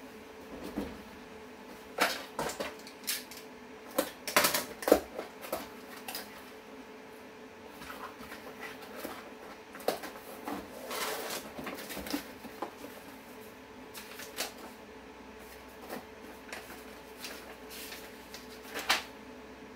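Packaging being handled on a table: plastic wrap crinkling, cardboard scraping and knocks, coming irregularly with the loudest cluster about four to five seconds in. A faint steady hum runs underneath.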